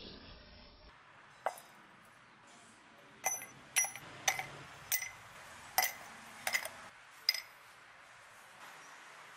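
Scrap brass fittings dropped one by one into a crucible, each landing with a sharp, ringing metallic clink. About nine clinks fall over roughly six seconds as the crucible is loaded for melting.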